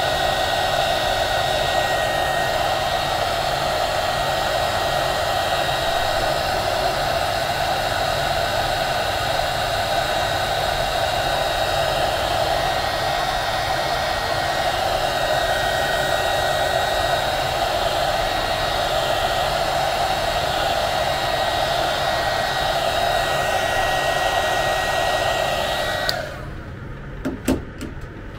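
Handheld electric heat gun blowing steadily with a whine, shrinking adhesive-lined heat-shrink tubing over soldered wires. It switches off abruptly about two seconds before the end, followed by a few light clicks.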